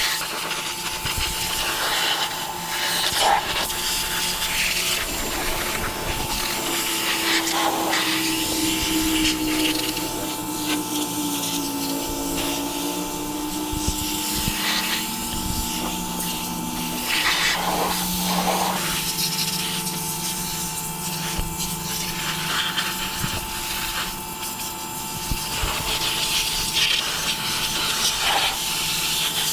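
Pressure washer running with a steady hiss of water spray, blasting grease and degreaser off an old tractor.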